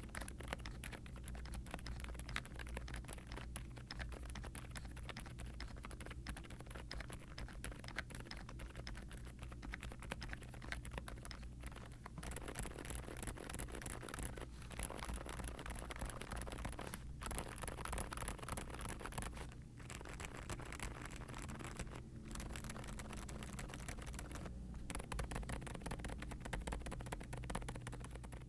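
Fast typing on a Meletrix Zoom75 aluminum keyboard with a polycarbonate plate, foam, Outemu Silent Lemon V3 silent tactile switches and doubleshot ABS keycaps. The keystrokes are quiet and muffled, a dense patter broken by a few short pauses.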